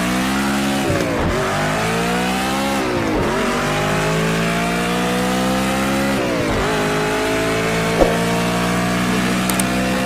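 Stock racing-engine sound effect from an intro track. A steady engine note's pitch slides slowly down, then dips and climbs back up about every three seconds, like repeated gear changes under acceleration.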